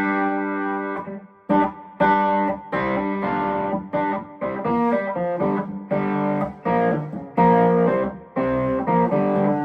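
Eastman Romeo SC hollow-body electric guitar played through a light overdrive: short, punchy chords struck in a loose rhythm, each choked off before the next.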